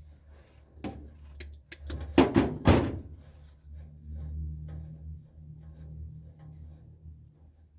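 A series of knocks and thunks, the loudest two close together about two and a half seconds in, followed by lighter scattered ticks over a low steady hum.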